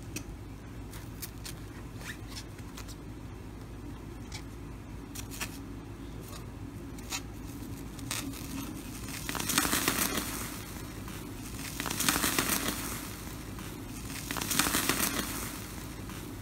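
Thin metallic foil covering slime crinkling and crackling as hands press and squeeze it. Scattered light crackles come first, then three louder spells of crinkling about two seconds apart in the second half.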